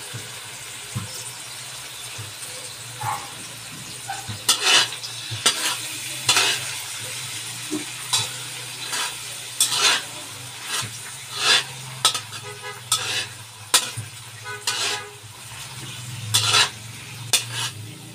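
A metal spatula scraping and stirring oyster sauce with garlic and onion in a hot wok, over a steady sizzle. The scrapes start about four seconds in and repeat irregularly, roughly once a second.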